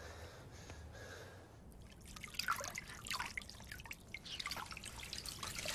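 Water dripping: faint for the first couple of seconds, then a run of irregular drops and small splashes from about two seconds in.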